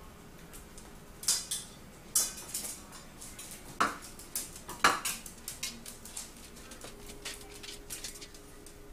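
Metal pots and pans in a kitchen cabinet clanking and rattling as a pet skunk climbs about among them. A handful of sharp knocks come in the first five seconds, with lighter clattering after.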